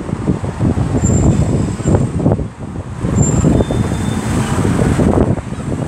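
Wind buffeting a phone's microphone, giving an uneven low rumble, mixed with road traffic noise.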